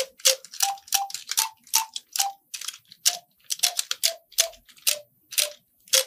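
TokTok smart Rubik's cube playing a simple tune as its faces are turned: a string of short electronic notes that step up and down in pitch, each starting with a sharp click. The notes come about three a second, with a brief pause midway.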